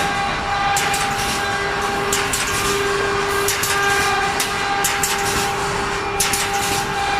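Automatic steel wire mesh welding machine running: a steady mechanical hum with two held tones, broken by repeated sharp clacks, about two a second and unevenly spaced.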